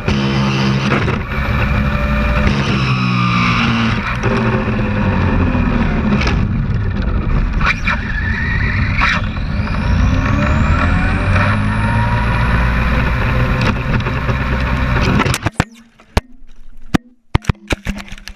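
RC race car heard from a camera mounted on it, running fast on asphalt: a steady motor and road noise whose pitch falls and rises with speed. About fifteen seconds in the noise cuts off suddenly as the car crashes off the road into the grass, followed by a handful of sharp knocks as it tumbles.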